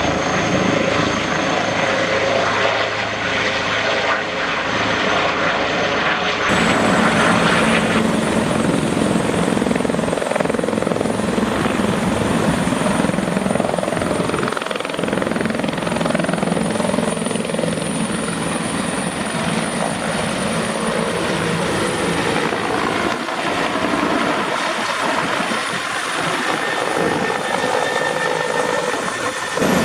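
Helicopter turbine whine and rotor noise, first from an Airbus H160. At a sudden change about six and a half seconds in, it gives way to a Bell 412EP twin-engine helicopter running with a steady high whine over rotor noise.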